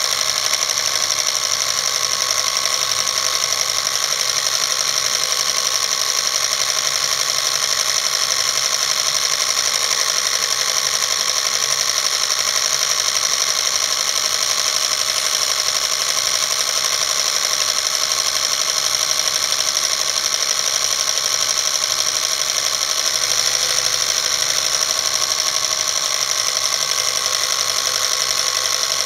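Film projector running: a steady, rapid mechanical clatter from its film transport that does not change as the shots change.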